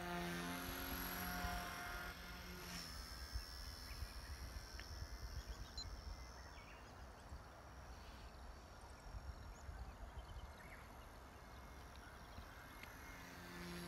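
XK K110 micro RC helicopter's electric motor and rotor whining as it passes close, a steady hum of several pitches that fades about three seconds in as it flies away. The whine returns faintly near the end, over a low rumble of wind on the microphone.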